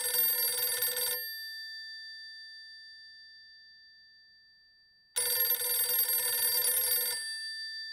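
Old electromechanical telephone bell ringing in two rings about four seconds apart, each lasting about two seconds, with the bell tones hanging on and fading after each ring.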